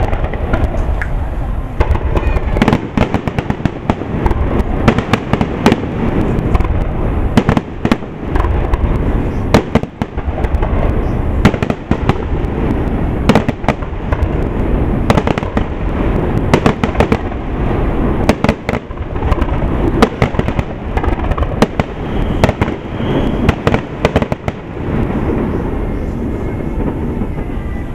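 Aerial fireworks display: shells bursting in a rapid, dense barrage of sharp bangs and crackles over a continuous low rumble, easing off near the end.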